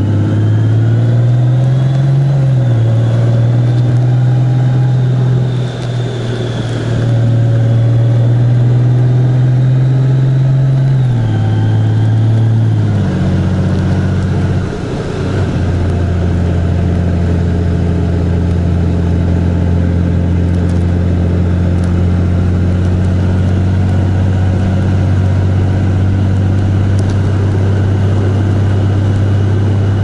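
Vehicle engine running steadily while on the move. Its pitch rises slightly, then drops about twelve seconds in and holds lower and steady.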